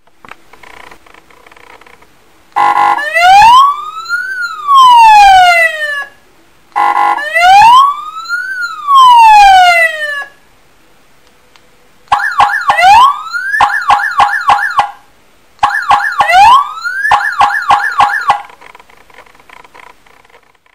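ME-S100 100-watt electronic siren sounding its tones: twice a short blast followed by a slow rise and fall in pitch, then after a short pause a fast, choppy pulsing tone with a quick upward sweep, played twice.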